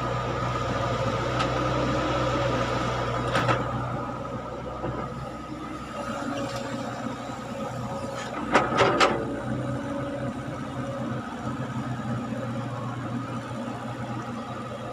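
Caterpillar hydraulic excavator's diesel engine running steadily under load while it digs and swings. There is a sharp knock about three seconds in and a quick run of three louder knocks a little past the middle.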